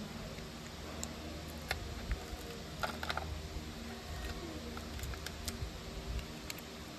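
Scattered light plastic clicks and taps, about ten of them, as clear polycarbonate keycaps are handled and pushed onto the switches of a mechanical keyboard, over a faint steady hum.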